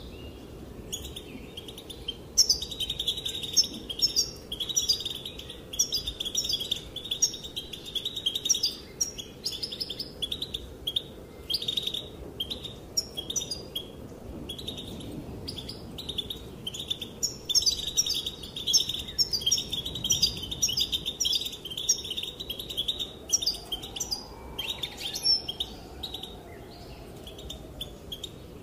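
Female European goldfinch twittering: fast runs of short, high chirps in two long bouts, with a few seconds of scattered chirps between them.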